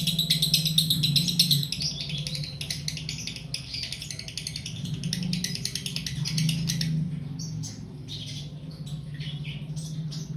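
Female lovebird chattering in a fast, continuous stream of chirps, the calling of a hen in breeding condition. It is loudest in the first second or so and grows sparser near the end, over a low steady hum.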